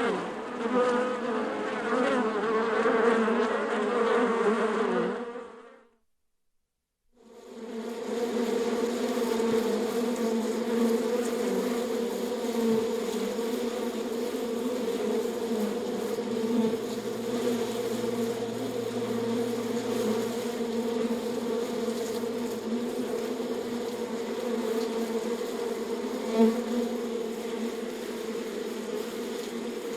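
A swarm of bees buzzing, a dense drone with a steady pitch. It fades out about five seconds in, goes silent for a second or so, then fades back in and keeps on steadily.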